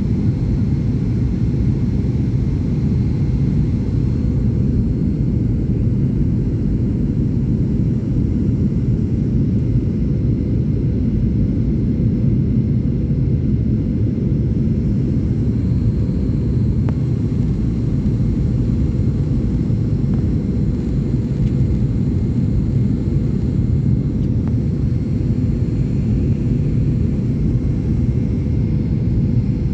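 Passenger airliner's engines, a steady deep rumble with a faint steady hum, unchanging throughout.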